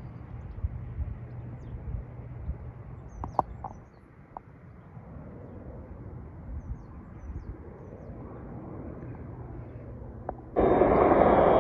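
Steady low hum of a Pilatus PC-12 single-engine turboprop climbing away in the distance, with a few brief chirps. Near the end, much louder aircraft engine noise starts abruptly.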